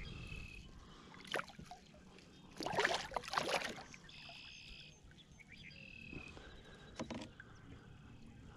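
Hooked white bass splashing at the water's surface beside a kayak as it is grabbed and lifted out by hand: a few short splashes, the loudest lasting about a second, about three seconds in.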